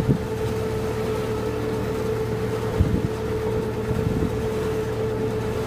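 Excursion motor launch under way, its engine running at a steady speed with a constant hum and low rumble. A couple of brief thumps come about three and four seconds in.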